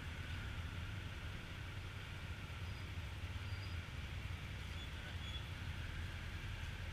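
BMW motorcycle engine idling steadily, a low even hum.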